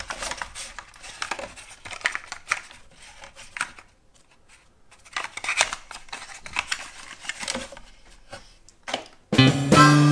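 A black cardboard pen box being handled and slid open, its sleeve scraping and rustling in irregular rubs and small clicks, with a short lull about four seconds in. Music with guitar starts suddenly near the end.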